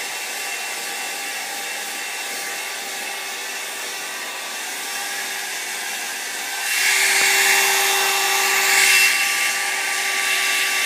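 Hair dryer blowing steadily with a whining hum; about two-thirds of the way in its rushing air gets noticeably louder and brighter for a few seconds, then eases back a little.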